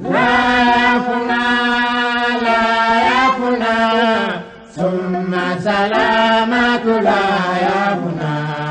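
Islamic devotional chant: a voice sings long, drawn-out notes that slide between pitches, with a brief break about four and a half seconds in.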